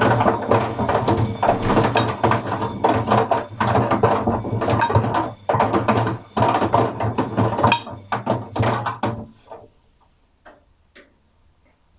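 Atlant 50U101 washing machine drum turning on a wash cycle, its motor humming while the paint rollers and brushes in the load clatter and knock. It stops about nine and a half seconds in for the usual pause between drum turns, with only a couple of faint clicks.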